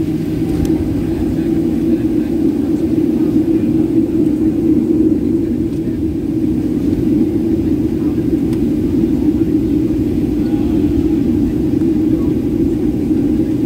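Steady low drone of an airliner's jet engines heard from inside the cabin while the plane taxis.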